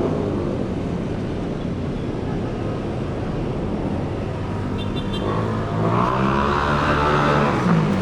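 Steady motor-vehicle traffic noise, with one vehicle's engine passing loudest, its pitch swelling and bending, about six to seven and a half seconds in. A short run of high beeps sounds about five seconds in.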